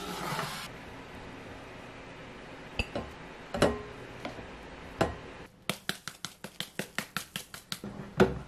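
Plastic rice paddle knocking against a rice cooker's inner pot and a glass bowl as cooked white rice is scooped out: a few separate clinks. Then comes a quick even run of about a dozen light clicks, roughly six a second, and a sharper clunk near the end. A brief rush of noise opens the sound.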